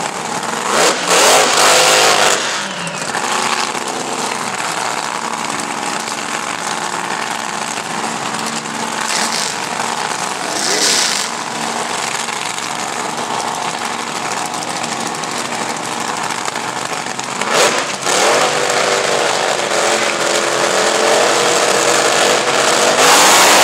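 Two dragster engines running at the starting line, with loud revving about a second in and again around eighteen seconds. Near the end both open up to full throttle together at the launch.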